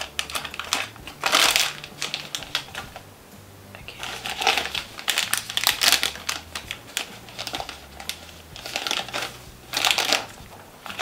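Clicking, rattling and rustling of small makeup items and packaging being handled close to the microphone, coming in several bursts of quick clicks with short pauses between.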